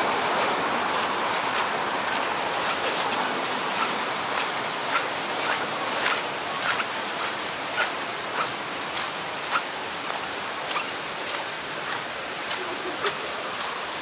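Beach ambience: a steady rush of ocean surf, with a string of short sharp ticks roughly every half second from about four seconds in.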